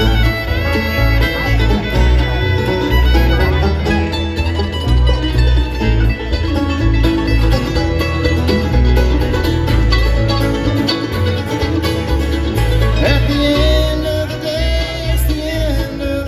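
Live bluegrass band playing an instrumental break, with banjo, fiddle and guitar over a steady bass pulse.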